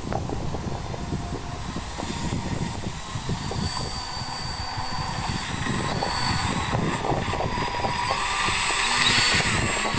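The electric motors and propellers of a foam-board RC model B-29 running, a high whine that steps up and down in pitch several times as the throttle changes.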